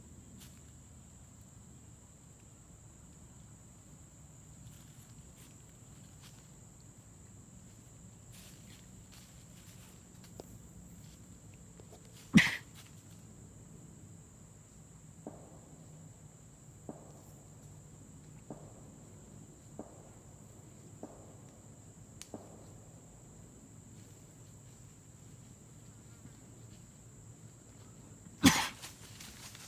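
A person coughing twice, about sixteen seconds apart, each a short sharp cough, the second followed by a brief second hack. Faint ticks fall between the coughs, under a steady high insect drone.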